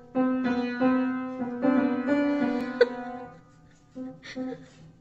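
Upright piano keys pressed by a cat's paws: several ringing notes and note clusters struck one after another, a sharp knock about three seconds in, then a few softer notes near the end.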